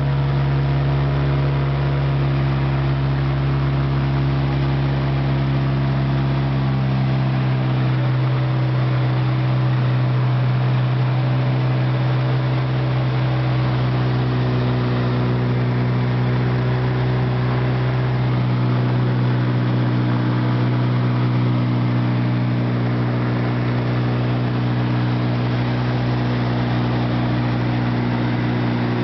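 Seabird Seeker light aircraft's four-cylinder Lycoming piston engine and pusher propeller droning steadily in cruise flight, heard inside the cabin as one deep hum with overtones. The lowest rumble drops away about seven seconds in and comes back a little past the two-thirds mark.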